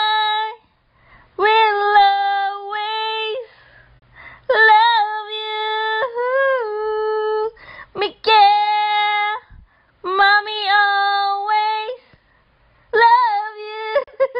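A woman singing unaccompanied, in held notes with small turns in pitch, in phrases of two to three seconds broken by short pauses for breath.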